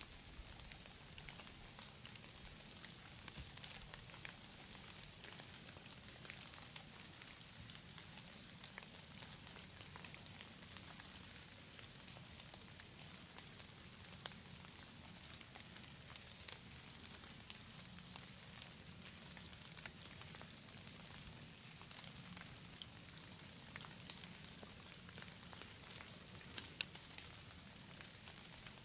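Quiet woodland ambience: a faint steady hiss with scattered small ticks and crackles, and one sharper tick near the end.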